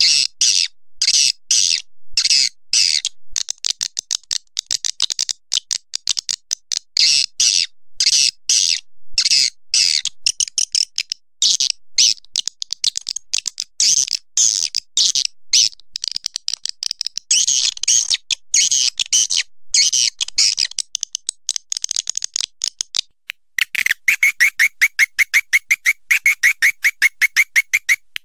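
Swiftlet calls of the kind played to lure swiftlets into a nesting house: dense runs of high, rapid chirping. Near the end they turn into a fast, even train of twittering pulses, about ten a second.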